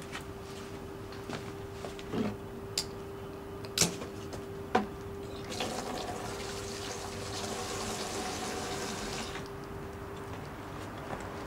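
Petrol flames burning on a gingerbread man: a few sharp crackling pops in the first five seconds, then a rushing hiss for about four seconds, over a steady low hum.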